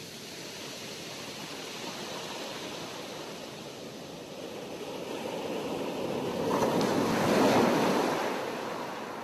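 Sea waves washing on a shore: a steady wash that swells to a louder breaking wave about two-thirds of the way through, then draws back.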